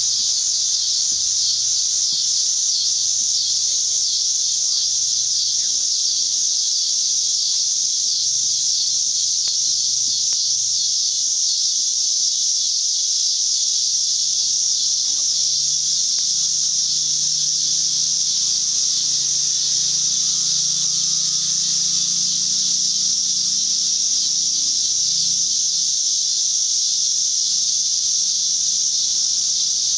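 A steady, high-pitched chorus of insects buzzing without a break. A faint low hum comes in partway through and fades near the end.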